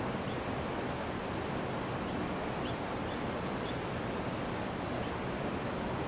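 Steady rushing of Victoria Falls, a constant even noise of heavy falling water that holds the same level throughout.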